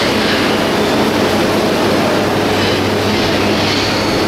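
Train running at speed: a steady, loud rumble of wheels on rails.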